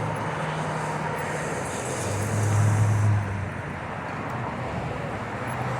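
Road traffic: a car's engine and tyres pass by, loudest about two to three seconds in, over a steady traffic hum.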